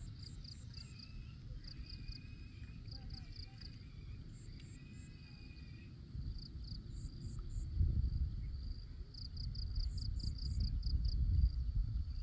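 Field insects, cricket-like, chirping in quick runs of short, high pulses that repeat throughout. A low rumbling noise grows louder in the second half and is the loudest sound.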